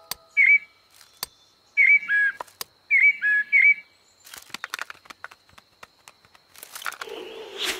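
Cartoon blackbird calls: three groups of short whistled chirps in the first four seconds, then a run of light ticks, with a rustling haze building near the end.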